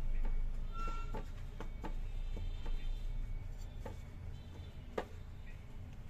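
Irregular soft taps and clicks of fingers patting an eggplant slice into dry gram-flour coating on a ceramic plate, the sharpest about five seconds in, over a low steady hum.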